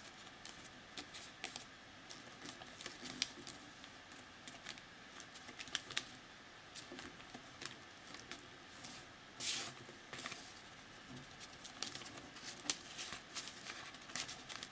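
A sheet of plain paper being folded and creased by hand for an origami boat: irregular small crinkles and sharp taps, with one longer rustle about nine and a half seconds in.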